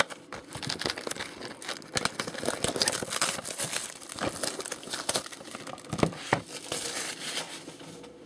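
Plastic shrink-wrap on a box of trading cards being torn and pulled off, a run of irregular crinkles and crackles.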